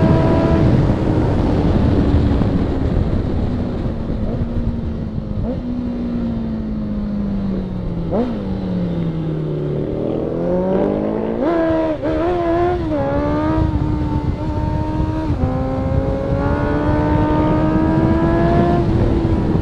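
Motorcycle engine heard from on board at track pace. The revs fall slowly for several seconds with a quick throttle blip on a downshift, then climb in a run of quick upshift steps, hold, drop, and build again near the end. Wind rush runs underneath.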